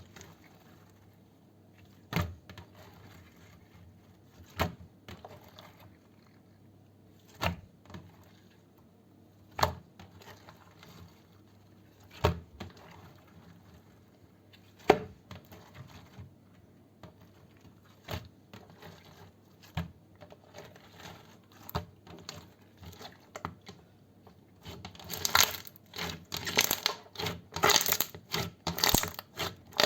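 Slime being worked close to the microphone, giving single sharp pops about every two and a half seconds, then softer scattered clicks, and a quick run of crackling pops near the end.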